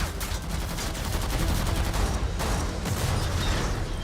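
Rapid gunfire, many shots a second, over a heavy low rumble: a film's mixed action sound effects played back from a trailer.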